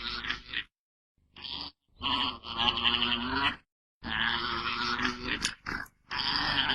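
Farm animal calls: a run of pitched, drawn-out cries of about a second each, broken by sudden dead gaps.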